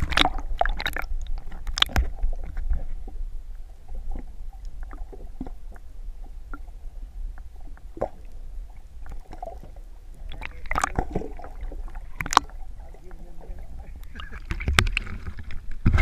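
Muffled underwater sound picked up through an action camera's waterproof housing: a steady low rumble with scattered clicks and knocks, growing louder near the end.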